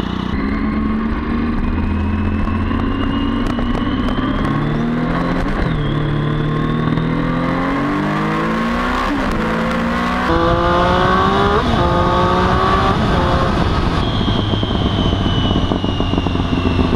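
Triumph sport bike engine accelerating hard through the gears, its pitch climbing and then dropping back at each of several upshifts, with wind rushing over the rider. Exhaust pops as the throttle closes.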